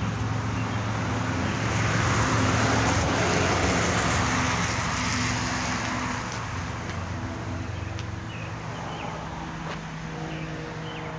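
A road vehicle passing by: its noise swells over a couple of seconds and then fades away, over a steady low hum.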